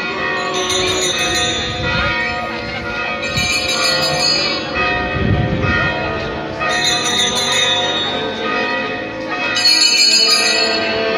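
Altar bells, a cluster of small hand bells, shaken in short jingling bursts about every three seconds, over music with long held notes.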